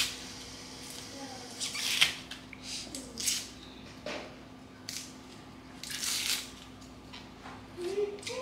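Irregular short scrapes and crackles of an onion being cut and handled with a knife, over a faint steady hum.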